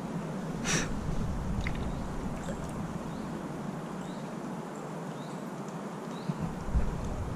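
A single short, sharp breath through the nose about a second in, over a steady background hiss. A low thump comes near the end.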